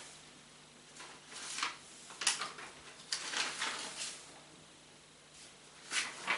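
A handful of short, irregular rustles and scrapes over a faint room hum.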